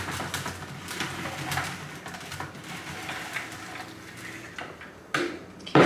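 Tomatoes and their bowl being handled and weighed on a scale: light clatter and small knocks of produce against the dish, with a louder knock a little after five seconds in.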